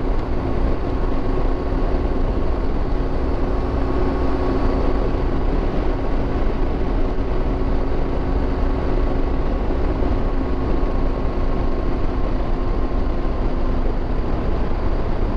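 Motorcycle riding along a sand beach: a steady engine hum under a constant rush of wind noise, with no change in pace.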